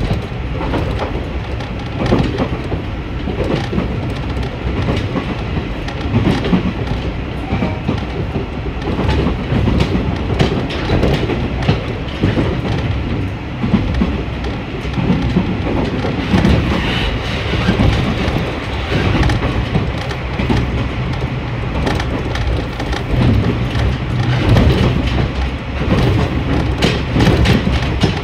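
Diesel railcar on the Tsuyama Line running at speed, heard from inside the carriage: a steady low running rumble with its wheels clicking irregularly over the rail joints.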